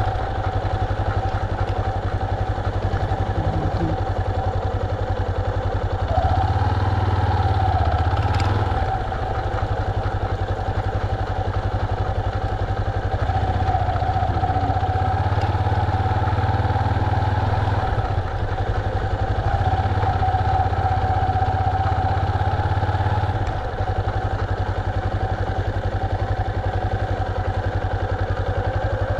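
Yamaha Serow 250's air-cooled single-cylinder engine running at low revs, swelling and easing back several times.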